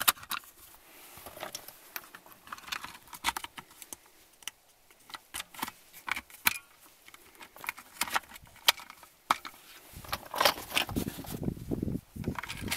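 12-gauge shotgun shells being pushed one by one into a Molot Vepr-12's polymer box magazine: irregular plastic-and-metal clicks, scrapes and rattles as each shell is pressed down against the follower spring. From about ten seconds in, the handling gets denser and louder.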